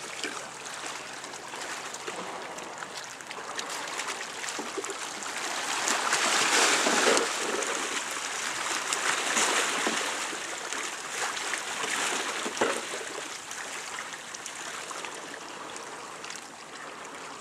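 Seawater lapping and washing against a harbour quay: a steady rushing splash that swells twice in the middle.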